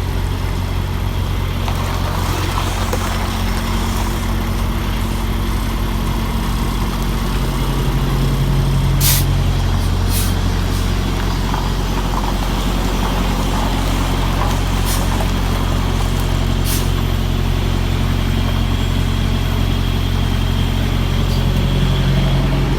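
Semi-truck's diesel engine running at low revs while the tractor-trailer is backed, swelling a little about eight seconds in and again near the end. Four short hisses of air come through over it, typical of the truck's air brakes.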